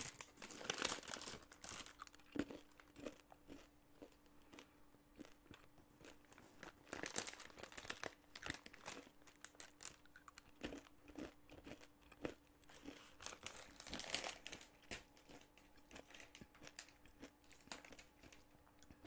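Plastic snack bag of peanut butter M&M's crinkling in a few faint bursts as it is handled, with crunching as the candy-shelled M&M's are chewed.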